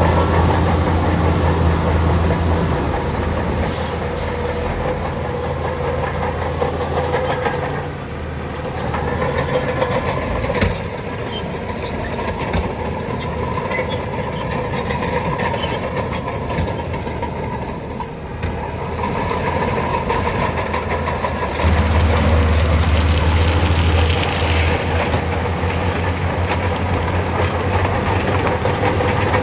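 Bulldozer's heavy diesel engine working, with a steady low drone and a few sharp metallic knocks. The engine drops back for a stretch, then comes up loud again about two-thirds of the way through.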